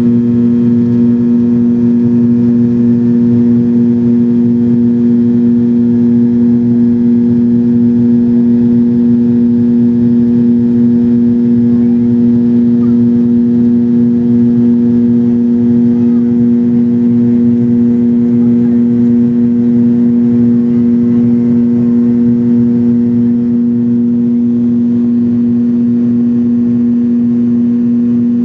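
McDonnell Douglas MD-87's tail-mounted Pratt & Whitney JT8D turbofan heard from inside the cabin during the climb after takeoff: a loud, steady drone with a low hum and a few held tones that do not change.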